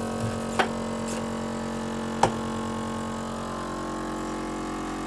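Small electric bottling machine humming steadily as it runs to fill a gin bottle, with two short knocks.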